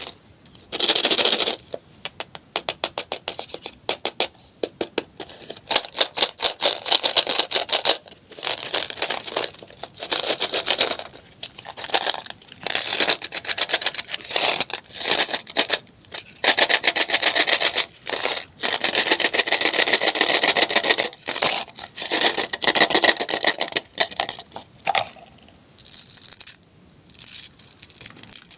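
Candy wrappers and plastic packaging being crinkled, scraped and torn open by hand, in stop-start bursts of crackling with short pauses between.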